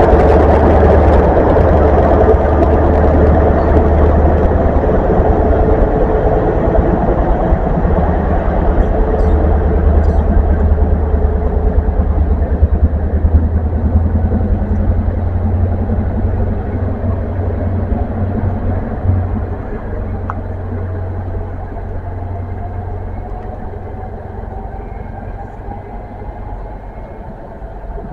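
Diesel engine of a GWR High Speed Train's Class 43 power car running loud as the train pulls away, its low hum fading steadily as it draws off into the distance. In the second half a faint rising whine comes through as it gathers speed.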